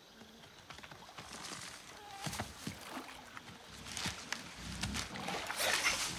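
Rustling through dense jungle undergrowth with scattered snaps and clicks, growing louder, with animal noises coming in toward the end.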